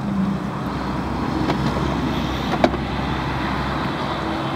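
A motor vehicle's engine running, a steady low rumble, with a single sharp click about two and a half seconds in.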